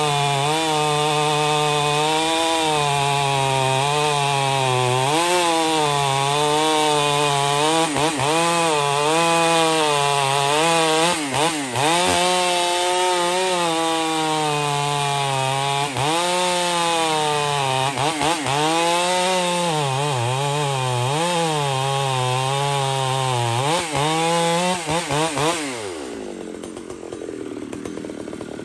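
Large two-stroke chainsaw, a Poulan 655, held at full throttle while bucking a big log: its pitch sags each time the bar is leaned into the wood and then picks up again. Near the end the revs fall away sharply as the trigger is let off and the saw comes out of the cut.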